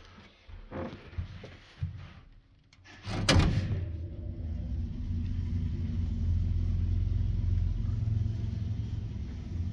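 Old Leuthold passenger lift: a few small clicks and knocks, then about three seconds in a sharp clack as the lift starts, followed by the car's steady low rumble of travel.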